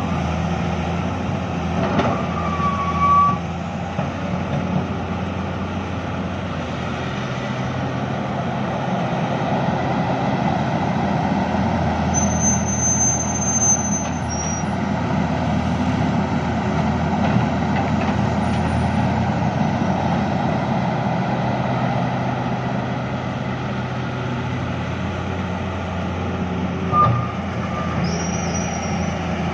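Excavator diesel engine running steadily under work, a continuous low drone with rumbling machine noise, and a few brief faint tones over it.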